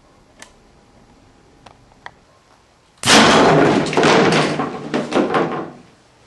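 A few faint clicks, then about three seconds in a long-barrelled potato gun fires a rocket at a plywood board with a sudden loud bang. It runs straight into the crash of the board and doll falling to the floor, several loud knocks that die away after nearly three seconds.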